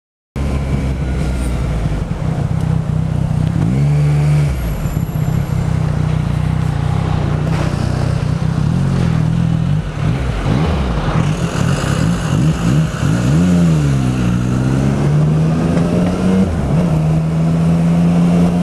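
A vehicle engine running close by at a low, steady pitch. It is revved briefly twice, about four seconds in and again around thirteen seconds, the pitch rising and then falling back each time.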